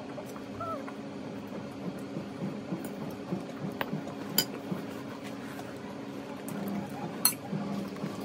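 A few sharp clinks of a fork against a salad bowl, over a steady low hum.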